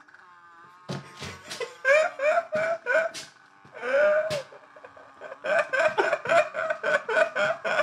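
Two men laughing heartily in rapid ha-ha pulses, starting about a second in, easing briefly around the middle, then building up again.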